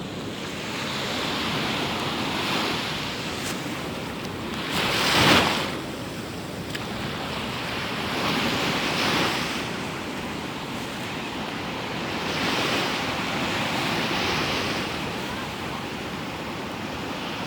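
Waves washing in, a steady rush that swells every few seconds, with one louder, sharper break about five seconds in.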